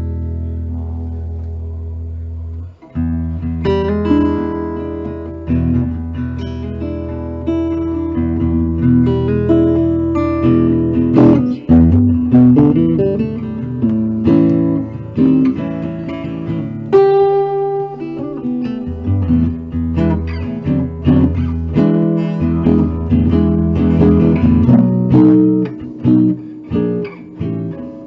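1970 Guild Artist Award archtop guitar played through a Rivera Suprema Jazz amp: a chord rings and fades, then after a short break a steady passage of plucked chords and single-note lines.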